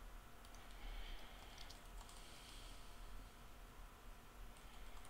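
Faint, scattered computer-keyboard keystrokes as a short command is typed, over a low steady hum.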